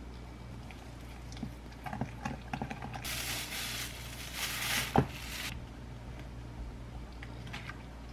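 Thin plastic bag crinkling for a couple of seconds as raw pork is worked out of it, with a sharp knock near the end as the meat lands in a glass mixing bowl. Before it come a few light clicks of a spice shaker and wooden spoon against the bowl.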